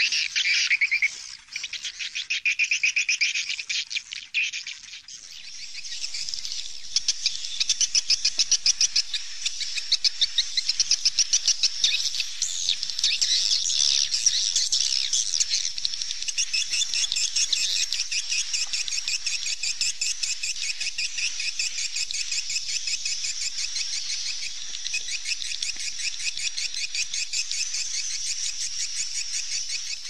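Swallows twittering: rapid high chirps, patchy for the first few seconds, then a dense, unbroken chatter from about six seconds in.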